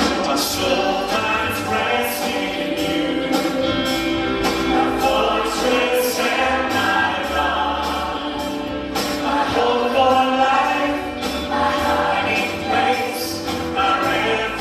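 Worship team of male and female singers singing a gospel worship song into microphones over instrumental backing with a steady beat.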